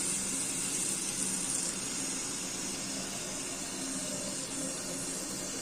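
Cold water running steadily from a kitchen tap, filling a pot for boiling.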